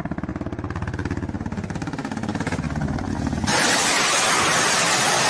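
Ka-52 attack helicopter passing low, its coaxial rotors making a rapid, even blade thumping. About three and a half seconds in, a louder steady rushing noise takes over as it fires a salvo of unguided rockets.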